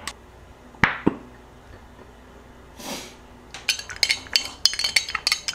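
A metal spoon stirring a hot toddy in a glass mason jar, clinking quickly against the glass over the last two seconds. Two sharp knocks come about a second in.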